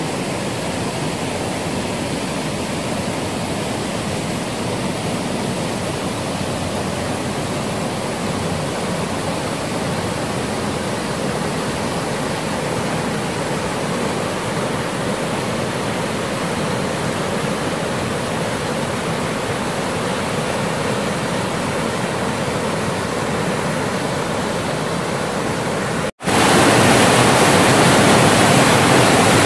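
Mountain stream rushing over rocks, a steady rush of water. About 26 seconds in it cuts off for an instant and a louder rush of whitewater pouring down a small waterfall takes over.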